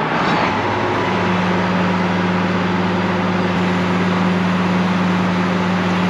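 Combine harvester running steadily under power, a loud even machine hum whose main tone rises a little in pitch during the first second, then holds.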